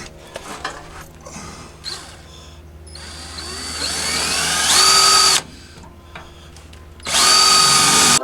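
Power drill drilling mounting holes for rock lights in a pickup's rear wheel well: after a few handling clicks, the drill spins up with a rising whine about three seconds in and stops about two seconds later, then runs again loud and steady from about seven seconds in.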